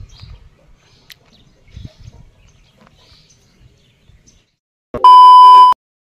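A single loud, steady electronic beep lasting about three-quarters of a second near the end, cutting off abruptly. It follows a few seconds of faint background sound.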